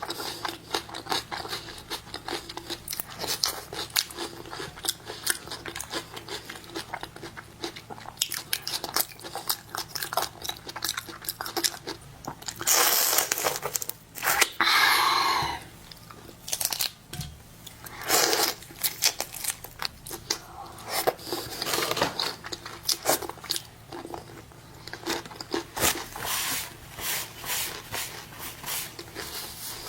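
Close-miked eating of shrimp and crab: shells cracking and crunching, tearing, and chewing in a dense run of crackles, with a louder stretch of crunching and tearing about halfway through.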